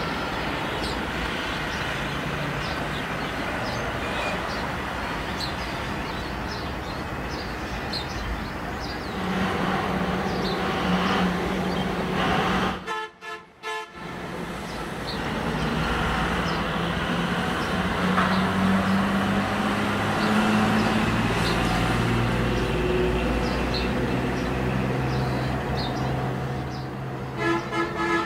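Jet airliner engine noise, heard outdoors, that grows louder about a third of the way in and again in the second half as a landing aircraft passes, over a bed of road traffic. The sound drops out briefly about halfway, and a short vehicle horn toots near the end.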